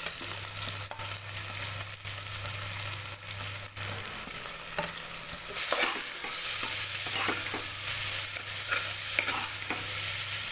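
Sliced onions sizzling in hot oil and ghee in a pressure cooker pot, stirred with a metal spoon and slotted ladle that scrape and clink against the pot. The scraping gets busier about halfway through.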